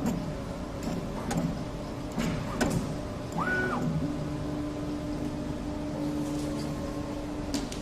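Automatic soldering robot's motors running as the solder head moves from joint to joint: short motor hums, several sharp clicks, and a brief higher whine that rises, holds and drops about three and a half seconds in. A steady hum follows for a few seconds and ends with a click near the end.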